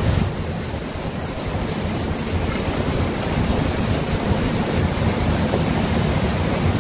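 Steady rush of a fast-flowing river, with wind buffeting the microphone in a low rumble.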